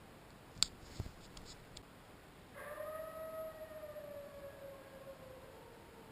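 Two sharp clicks about a second in, then one long howl of about three and a half seconds that holds its pitch and then slides slowly down.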